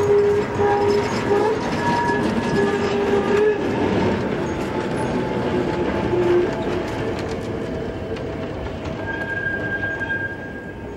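Vintage Thüringerwaldbahn tram with a trailing goods wagon rolling past on curved track: a running rumble with high squealing tones from the wheels that come and go and shift in pitch. The sound fades after about six seconds as the vehicles move off.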